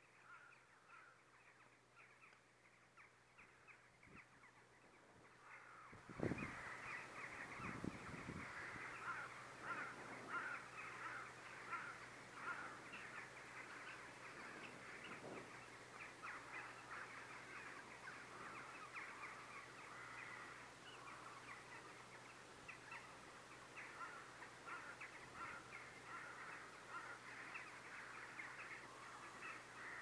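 A flock of crows cawing, many voices overlapping in a faint, continuous chatter of short caws. The cawing grows louder about six seconds in, with a few dull thumps around then.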